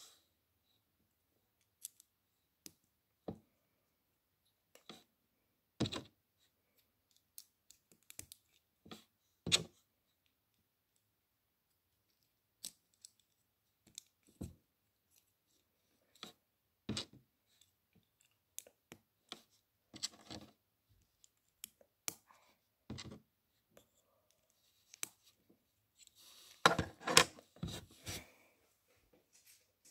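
Small plastic LEGO bricks and plates being pressed together and pulled apart by hand, giving scattered sharp clicks several seconds apart. Near the end there is a short run of clattering as the finished little model is handled and set down on the wooden table.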